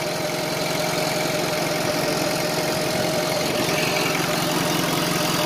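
Honda four-cylinder engine idling steadily, with a thin steady whine over the running.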